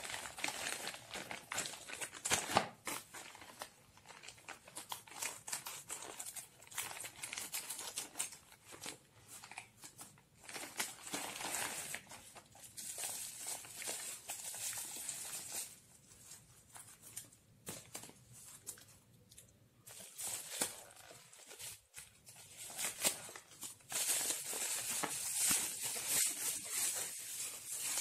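Plastic courier mailer and bubble wrap crinkling and rustling in irregular bursts as they are handled, with scissors snipping through the plastic mailer.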